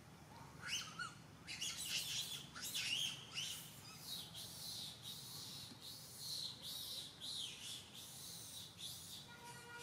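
Baby monkey crying: a rapid run of short, high-pitched squealing calls that glide up and down, starting about half a second in and going on almost to the end.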